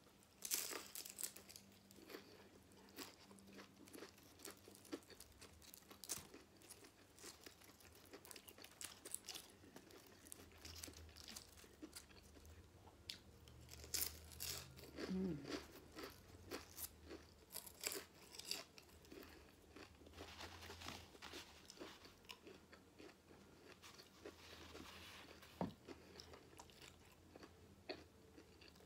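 Close-up crunching and chewing of crispy fried egg rolls (lumpia): irregular crunches and small mouth clicks, loudest just after the start and again around fourteen seconds in.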